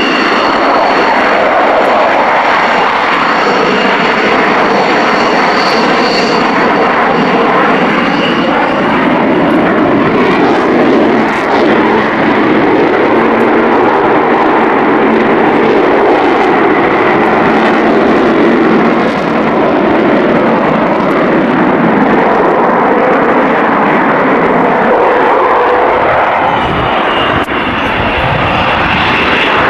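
Avro Vulcan's four Bristol Olympus jet engines running loud and steady as the bomber flies past overhead. A high whine sits over the roar for the first several seconds and comes back near the end.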